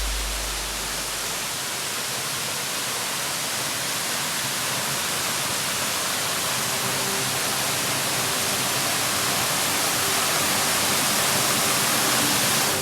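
Waterfall: a steady rush of falling water that grows slightly louder throughout.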